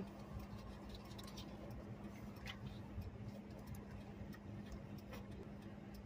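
Quiet background with a steady low hum and a few faint, irregular ticks.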